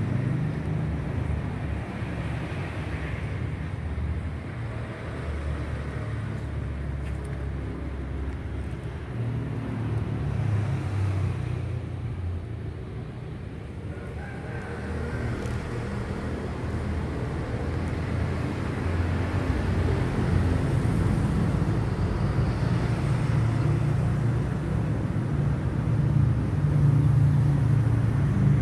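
Low, uneven outdoor rumble with no clear tones, dipping a little about halfway through and swelling again later on.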